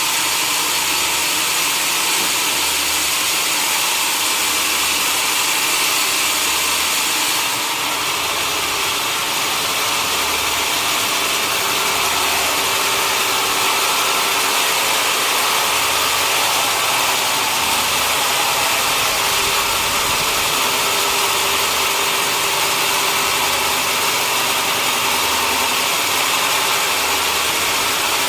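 Sawmill machinery running steadily: a loud, even mechanical noise with a slight dip about seven seconds in.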